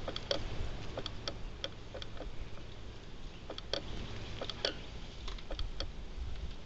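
Irregular light clicks, two or three a second, over a low steady rumble.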